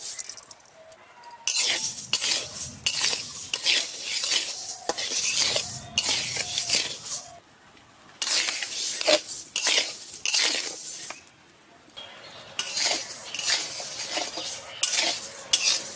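A spatula scraping and stirring dry moong dal around a hot metal kadai as the dal is dry-roasted. It comes as a run of rough scraping strokes with two short pauses, about seven and about eleven seconds in.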